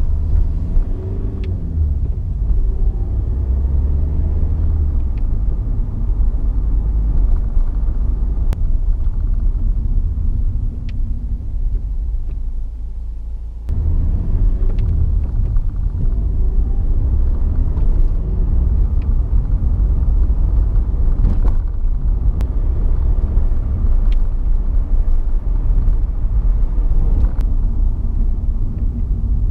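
2012 Honda Civic diesel with manual gearbox being driven, the engine note rising and falling as it is taken up through the gears, with several short sharp clicks along the way. The clicks are the fault the owner is asking about: a click from the transmission when passing through neutral on gear changes, most often between second, third and fourth.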